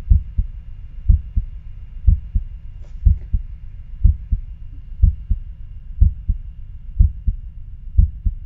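Recording of normal heart sounds: a lub-dub pair (S1 then S2) about once a second, the first beat of each pair the louder, over a low steady background noise.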